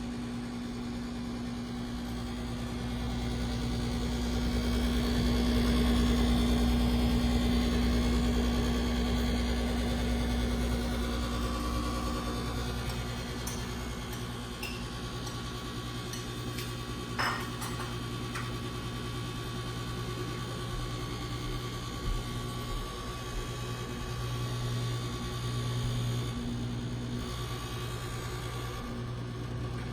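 GE Café series microwave oven running with a vibrating noise: a steady low hum and buzz that swells louder for several seconds near the start, then settles back. A sharp click sounds about halfway through. The vibrating noise comes up only now and then, after the oven has been used a couple of times.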